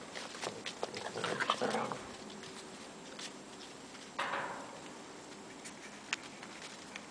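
German Shepherd puppies play-fighting, with short puppy yips and growls over scattered clicks and scuffs of paws on crusted snow. The sounds are loudest about a second in and again in a sudden burst at about four seconds.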